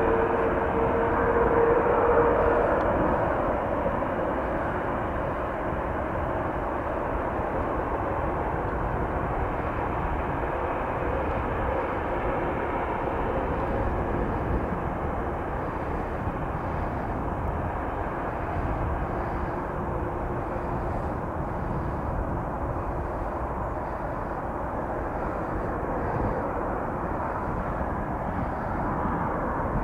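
Airliner engines: a steady whine over a rushing roar that fades over the first three seconds, then a steady, even rumble that carries on.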